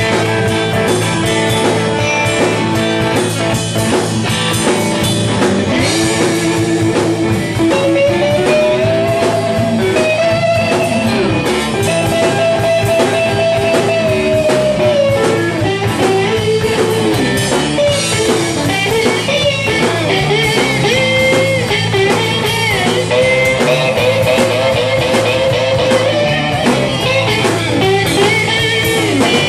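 Blues band playing live: a guitar lead line with bent notes over bass and a drum kit.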